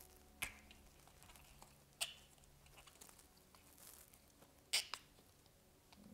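Hands working a rubber insert into a rubber slip-on spike attachment: light scratching and rubbing with a few sharp clicks, two in quick succession near the end.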